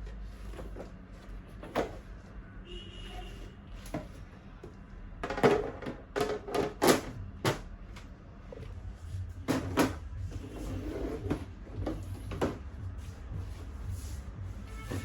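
Plastic baby high chair parts knocking and clicking as they are handled and fitted together. There is a series of sharp knocks, bunched about five to seven seconds in and again around ten seconds.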